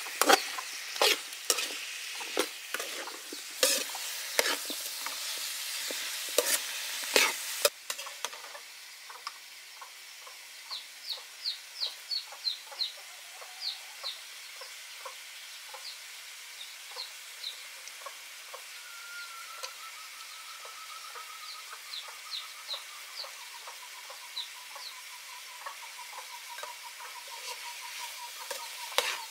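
A metal ladle stirring pork ribs, pineapple and peppers in a sizzling wok, with repeated sharp clinks against the pan. About eight seconds in it drops to a quieter background with a run of high chirps and, later, a faint pulsing call that slides down in pitch.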